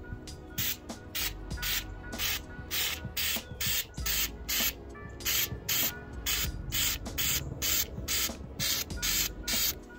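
Aerosol can of Flex Seal liquid rubber sealant spraying in short repeated hisses, about two to three a second, starting about half a second in. Background music plays faintly underneath.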